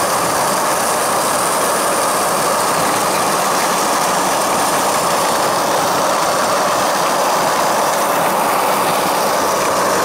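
Steel ball-bearing wheels of a handmade four-bearing cart rolling fast down an asphalt road, heard from on board: a loud, steady rolling roar without a break.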